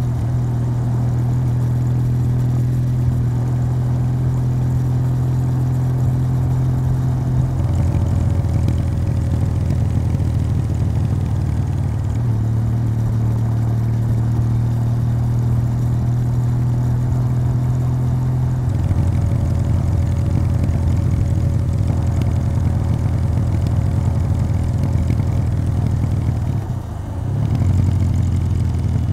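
Kawasaki W800's air-cooled parallel-twin running through its stock exhaust under way, its note switching twice from a steady, even hum to a rougher, lower beat, about a third of the way in and again past the middle. There is a brief dip near the end before it picks up again.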